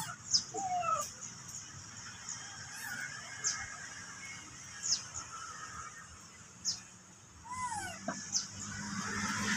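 Faint squeaky calls of baby macaques: short high falling chirps every second or two, with a few arched squeals near the start and again about eight seconds in.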